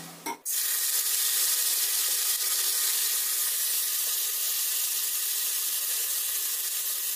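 Boiled besan gatte pieces shallow-frying in hot oil in a kadai: a steady sizzle that starts suddenly about half a second in.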